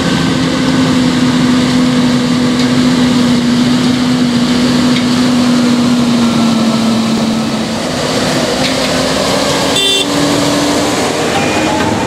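Massey Ferguson 8740 S tractor towing a Massey Ferguson 2270XD large square baler drives past close by, its engine running with a steady drone that dips a little past the middle and then rises again. A single sharp clank comes near the end.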